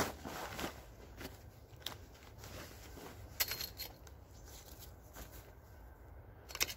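Green canvas bundle rustling as it is unrolled by hand, with light knocks and clicks from the gear inside (an axe, gloves) being shifted, and a sharper knock at the very start.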